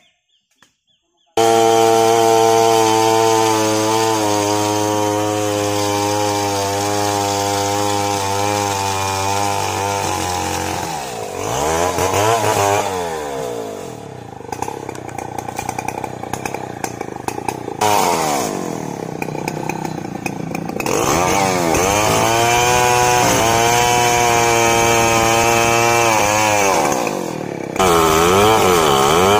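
Two-stroke chainsaw with a long bar cutting into the trunk of a big mahogany tree. It cuts in abruptly after a second and a half of near silence, then runs at high revs, its pitch sagging and recovering again and again as the chain bites under load.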